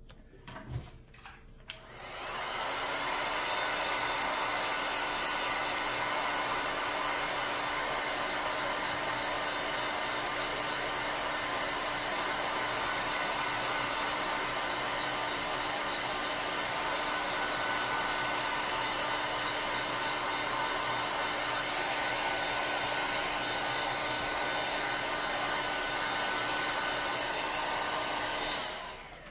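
Handheld electric heat gun blowing hot air to dry a wet watercolour painting: a steady rushing blow with a low hum underneath. It switches on about two seconds in and cuts off near the end.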